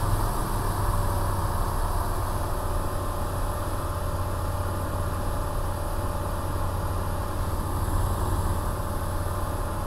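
Single-engine light airplane's piston engine and propeller running steadily at climb power, heard from inside the cockpit as a constant low drone.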